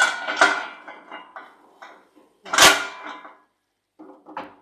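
Steel pan lid clattering as it is lifted off and set down beside the stove, then a wooden spatula knocking and scraping in the frying pan of thick masala, with one loud clang about halfway through and a few small knocks near the end.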